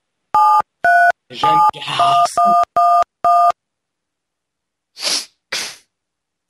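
Telephone keypad touch-tones (DTMF) as a phone number is keyed into an automated phone menu: about seven short two-note beeps in quick succession. Near the end come two short hissing noises.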